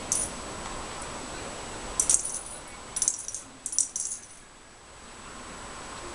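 Hanging perforated plastic cat-toy ball with a rattle inside, jingling in four short bursts as a kitten bats it on its string.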